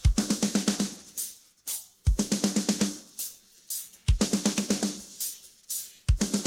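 Isolated rock drum kit track: a bass drum and crash cymbal hit together about every two seconds, each followed by a quick run of drum strokes that fades away before the next hit.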